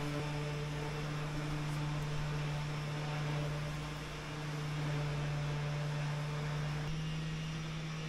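Steady electrical hum with a hiss from an ArcDroid portable CNC plasma-cutting rig running a test program, with no arc struck.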